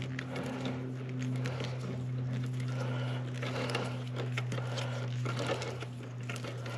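A steady low electrical-sounding hum runs under scattered light clicks and rustles, like something being handled.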